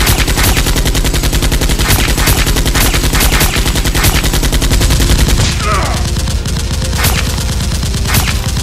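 Movie-style automatic gunfire sound effects, a rapid stream of shots with louder single cracks standing out. About five and a half seconds in, the rapid fire drops away into a brief falling whistle, followed by two separate shots about a second apart.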